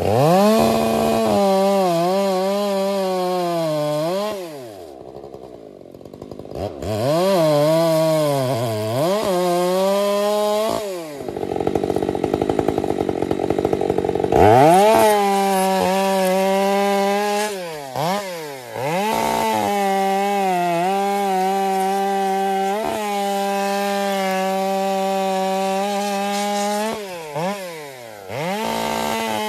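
Large Stihl chainsaw bucking a shagbark hickory trunk. The engine revs up and down several times in the first half and drops toward idle around five seconds in. It then runs at a steady full throttle through a long cut, dipping briefly to idle near the end.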